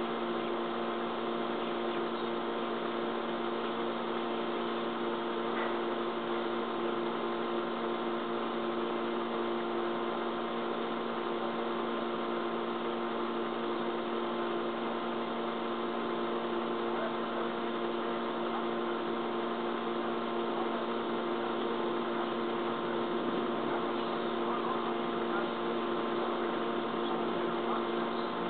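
Steady electrical hum made of several fixed low tones, even and unchanging in level.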